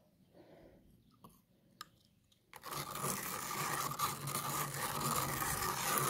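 A plastic tablet-tube magnet being swept through wet black sand and gravel in a plastic gold pan, drawing out the magnetite. It makes a steady gritty scraping that starts about two and a half seconds in, after a near-silent stretch with a few faint clicks.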